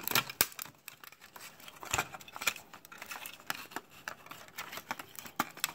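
Irregular small clicks and crackles of copper wire windings and a plastic housing being handled and pried apart, as the coils are worked out of a tube TV's deflection yoke, with a sharper snap about two seconds in.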